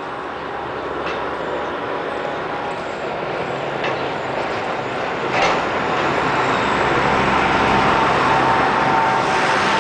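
Steady noise of a passing vehicle, growing gradually louder, with a steady hum coming in over the second half and a few faint knocks.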